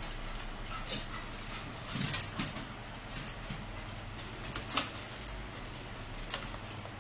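Water poured from a plastic bottle into a plastic cup, with short crinkles and clicks from the bottle; the cap is screwed back on near the end.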